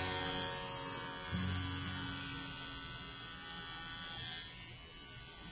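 Wahl Bravura Lithium cordless pet clipper running with a steady buzz as it is pushed through a small dog's curly coat.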